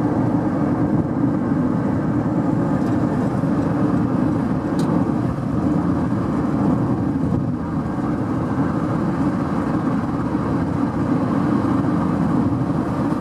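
Steady running noise of a moving car, a low hum of road and engine with no changes.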